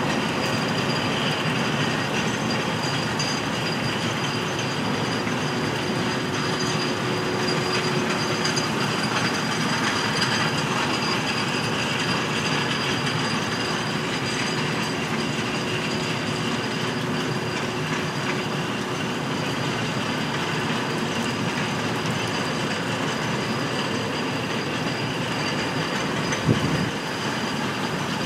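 Small steel-wheeled rail carts carrying strings of ribbon rail rolling steadily past on the track: a continuous rumble with a faint thin squeal. There is a single short knock about 26 seconds in.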